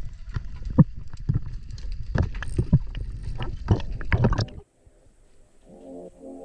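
Underwater sound picked up by a diver's camera: water rushing against the housing with irregular knocks and clicks from the diver's movements, cutting off suddenly about four and a half seconds in. After a moment of near quiet, background music with low held chords comes in near the end.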